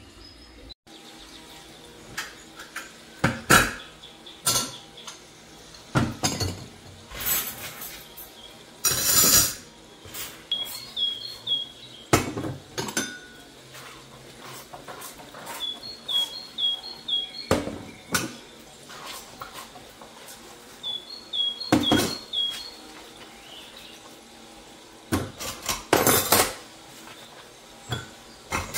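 Dishes and cutlery clinking and knocking as they are handled and set down: irregular sharp clinks, some ringing briefly, with pauses between them.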